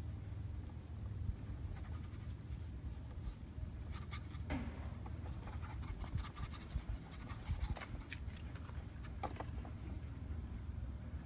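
Paintbrush strokes on a painting panel: short, scratchy brushing and dabbing in irregular clusters, over a steady low rumble.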